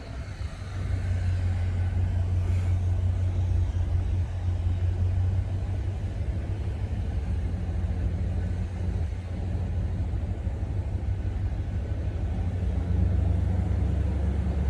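Pickup truck driving slowly, heard from inside the cab: a steady low engine and road rumble that picks up about a second in.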